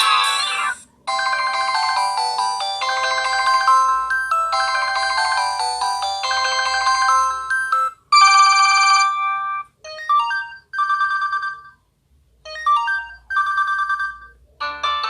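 Samsung Gravity 2 (SGH-T469) cell phone playing its built-in electronic ringtones one after another through its small speaker, thin with almost no bass. A tune ends within the first second, a new melody repeats a short phrase about every second and a half for some seven seconds, then come short chiming tones with pauses between them, and another tune starts near the end.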